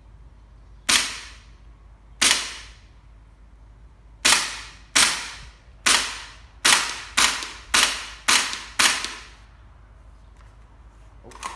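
HPA-tapped Aimtop SVD gas blowback airsoft rifle firing ten semi-automatic shots, each a sharp crack with a short fading tail. The first shots come more than a second apart; from about seven seconds in they come quicker, about two a second.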